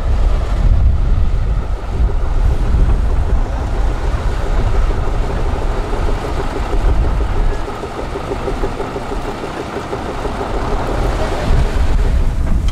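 Tatra 8x8 off-road truck's diesel engine running under load, mixed with wind buffeting the microphone; the noise eases a little about eight seconds in and builds again near the end.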